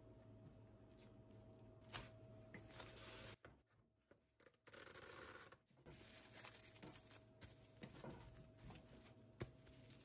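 Near silence: faint room tone with a steady low hum and scattered light clicks and rustles of handling. The sound drops out almost entirely a little over three seconds in, then returns.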